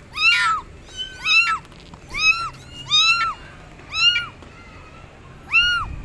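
Kitten meowing repeatedly: a series of short, high-pitched meows, roughly one a second, each rising and then falling in pitch.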